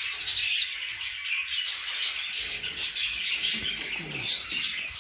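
Pigeons in a loft: many high chirps and peeps without a break, and one low falling coo shortly before four seconds in.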